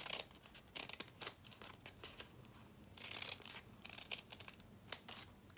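Scissors snipping through folded paper: a series of short sharp snips, with a longer, noisier cut about three seconds in.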